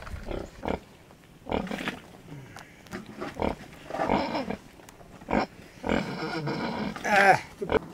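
Farm animal calling in a string of short separate sounds, the loudest a high wavering call near the end, with a few sharp knocks between them.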